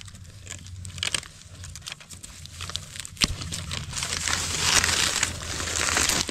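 Dry leaf litter and dry bamboo stems rustling and crackling as a hand works through a bamboo clump to break off shoots, with scattered sharp clicks, one louder about three seconds in, and heavier rustling from about four seconds in.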